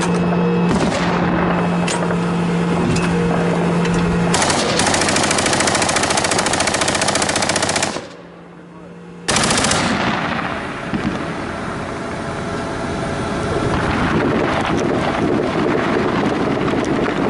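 Automatic machine-gun fire in long, rapid bursts. A steady low hum lies under the opening shots. About four seconds in, a dense continuous burst runs for some three and a half seconds and cuts off abruptly. After a short lull the firing resumes and carries on.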